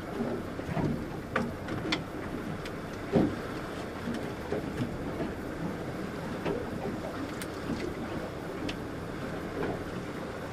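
Water lapping and slapping against an aluminum boat hull, with a few light clicks and knocks from bait and tackle being handled, and one louder thump about three seconds in.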